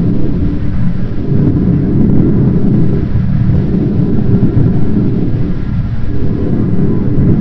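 Loud, continuous low rumble that holds steady throughout, with faint steady high tones above it.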